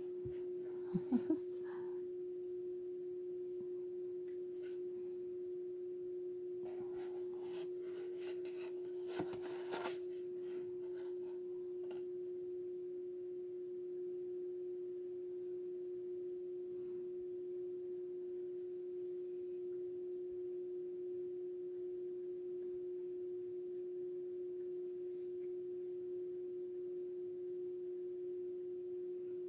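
A steady, unchanging pure tone at one mid pitch. A few faint clicks and taps come about a second in and again between about seven and ten seconds.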